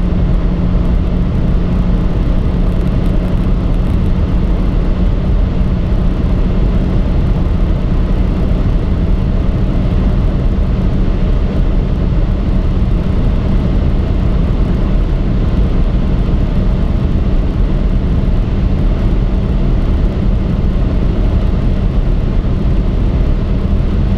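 Interior sound of a Stage 1 remapped BMW 116i F20's turbocharged 1.6-litre N13 four-cylinder, pulling at about 5,500–6,000 rpm in top gear as the car accelerates past 220 km/h. Its steady engine note creeps slowly higher, over heavy wind and road noise.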